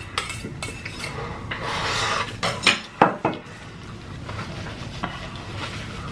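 Chopsticks clicking and scraping against a bowl of noodles while eating: a stretch of scraping about two seconds in, then a few sharp clicks.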